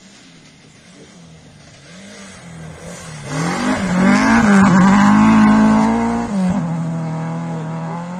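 Rally car passing on a snow stage: its engine grows louder on the approach, peaks about halfway through with the revs rising and falling, drops suddenly, then fades as the car drives away.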